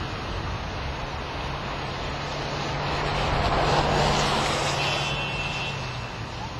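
A road vehicle passing close by: its noise swells to a peak about four seconds in and then fades, over steady outdoor noise and a low hum.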